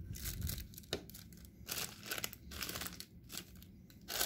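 Small clear plastic accessory bags crinkling as they are handled, in several irregular bursts of rustling.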